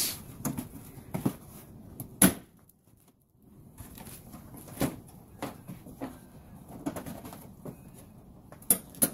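Plastic wheel-arch flare clips on a Mitsubishi Triton MN popping loose as the flare is pulled off the guard by hand: a series of sharp plastic clicks and knocks, the loudest a little over two seconds in and two more close together near the end.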